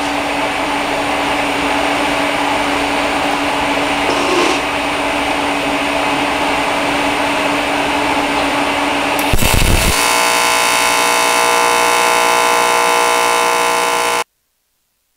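A steady machine hum and hiss, then about nine seconds in a TIG welder's AC arc strikes on aluminium at about 170 amps. The arc buzzes steadily, many tones at once, for about four seconds and then cuts off suddenly.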